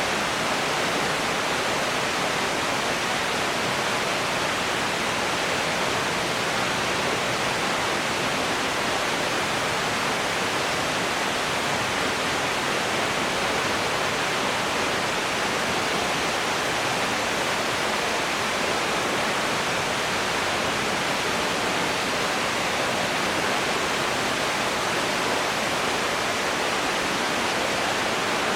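Waterfall, a steady rushing hiss of falling water with no change throughout.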